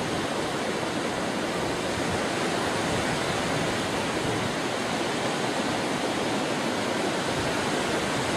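Steady, even rushing noise of ocean surf and wind at the beach.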